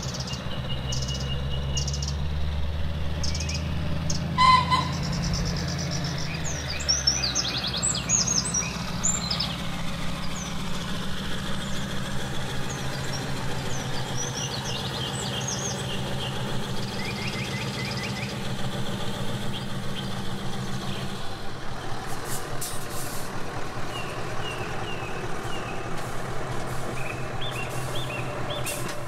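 Diesel-engine sound of a radio-controlled model tipper truck, revving up and down in the first few seconds and then running steadily. Small birds chirp throughout, and a short tone sounds about four seconds in.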